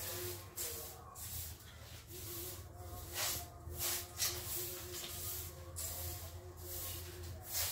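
Short hand broom sweeping a tiled floor, a rhythmic swish about twice a second.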